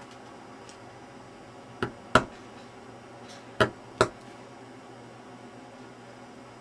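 A carving knife cutting straight down through a block of dental carving wax, giving four sharp clicks in two close pairs about a second and a half apart.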